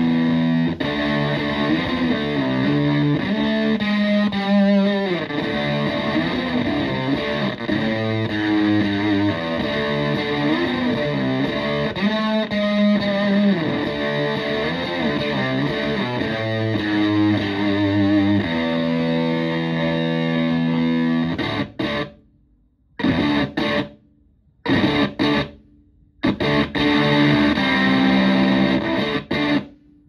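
Fender Stratocaster played through a Tone Bender MKI fuzz pedal (Gary Hurst version) into a Twin Reverb–style amp: fuzzy, distorted electric guitar playing lines and held chords. In the last third the playing turns into short chord stabs, each cut off suddenly by a gap of silence.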